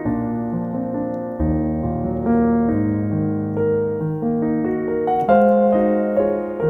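Soft piano background music, a slow melody of held notes.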